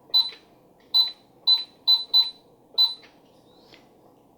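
Mickey Mouse Clubhouse toy cash register giving six short, high electronic beeps at uneven intervals within about three seconds.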